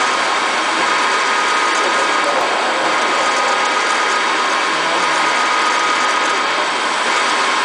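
Dama DMD0620 CNC drilling machine drilling through a stack of metal plates: a steady machining noise from the spindle and drill cutting, with a faint constant whine.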